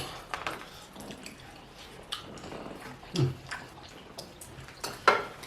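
Wet mouth sounds of eating soup and starch: scattered smacks and clicks of chewing. There is a short low vocal sound about three seconds in and a louder breathy sound near the end.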